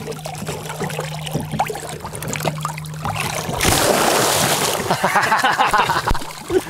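Water sloshing and splashing as a tarpon is held in the water at the side of the boat and released, with a loud, rushing splash about three and a half seconds in that lasts about a second as the fish kicks off.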